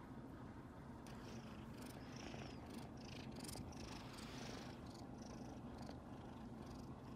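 A white mixed-breed kitten purring steadily, a continuous low rumble close to the microphone. Brief scratchy rustles come through from about one to five seconds in.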